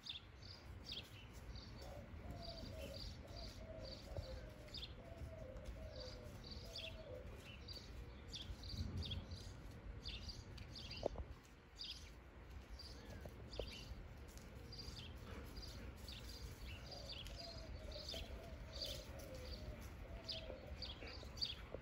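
Small birds chirping repeatedly, with two runs of quicker, lower notes, over a steady low background rumble.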